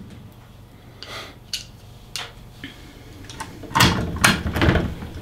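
Clicks and knocks of plastic and metal parts being handled as a trip unit is fitted into a moulded case circuit breaker. At first there are a few light separate clicks, then a busier run of louder knocks starts a little before four seconds in.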